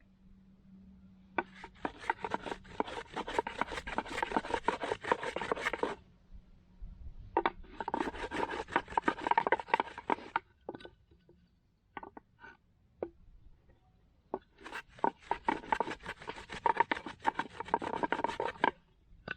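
Two flat wooden boards rubbed hard back and forth over a rolled wad of cotton, a fast scraping rasp in three bouts of several seconds each, with a few single knocks in the pauses. The friction is meant to heat the cotton until it smoulders into an ember.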